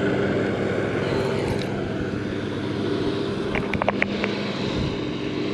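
A steady engine drone holding one pitch, with a few short high chirps about four seconds in.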